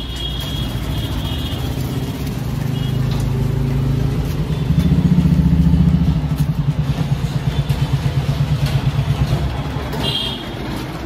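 Motor vehicle engine running close by with a low rumble. It grows louder about four and a half seconds in, throbs rapidly for a few seconds, then eases off near the end.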